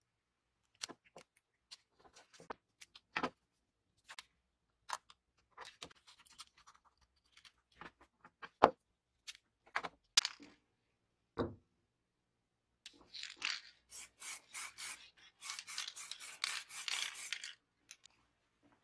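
Scattered taps, clicks and rubbing as a plastic tape-dispenser part is handled and set on a wooden bench, the sharpest click a little past the middle. Near the end come about four seconds of rapid hissing bursts from an aerosol spray-paint can.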